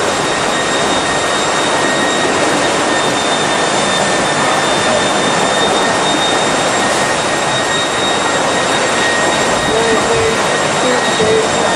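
A loud, steady roar of rushing tsunami floodwater, with a thin high whine over it.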